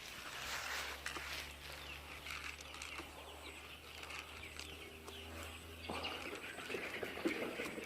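Free-range village chickens chirping and calling faintly, over a low steady hum that stops about six seconds in.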